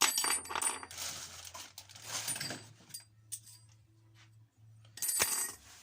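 Small parts being handled at a workbench: clinks and rustling in a few short bursts, with a sharp click about five seconds in, over a faint steady low hum.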